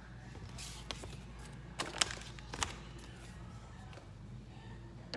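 Small plastic items being handled: a few sharp clicks and crinkles, the loudest about two seconds in, over a low steady hum.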